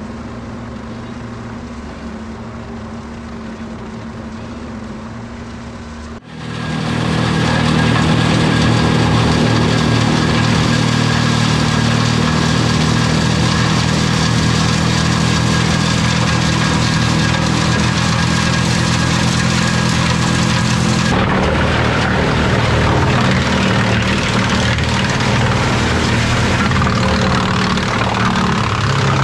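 Tractor and Eschlböck Biber 7 wood chipper running at working speed: a steady machine hum with several held tones. About six seconds in it jumps abruptly much louder, and about twenty seconds in it turns rougher and noisier.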